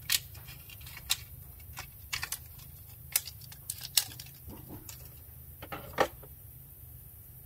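Scissors snipping: a series of short, sharp snips about a second apart, with some rustling handling and one loud click about six seconds in.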